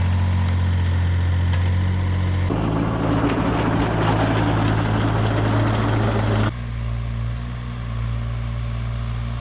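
Mini excavator's diesel engine running steadily. About two and a half seconds in, its pitch rises a little and a rougher noise joins. About six and a half seconds in, the sound drops sharply to a quieter steady hum.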